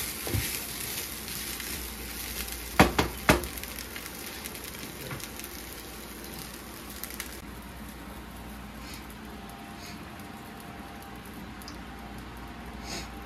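Stir fry sizzling in a hot pan, with two sharp knocks close together about three seconds in. The sizzle eases off about seven seconds in and carries on more quietly.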